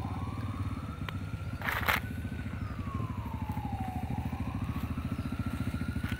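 Small motorcycle engine running with a steady low putter, its pitch rising, dropping and rising again as the rider opens and eases the throttle. A brief burst of noise about two seconds in.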